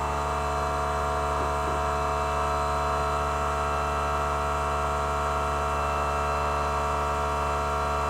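Steady machine hum at a fixed pitch with its overtones, unchanging throughout.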